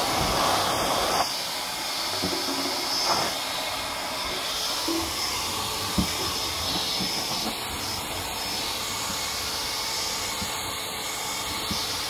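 KYK KVAC950K 1 kW wet/dry vacuum running in blower mode, its motor pushing a steady rush of air out of the hose nozzle. The blast is a little louder for about the first second, and there is one sharp knock about halfway through.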